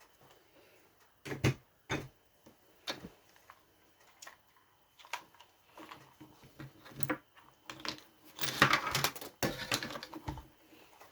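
Scattered clicks, taps and knocks of tools and hard parts being handled while a cordless circular saw is dismantled, with a denser scraping rattle lasting about a second, roughly two-thirds of the way through.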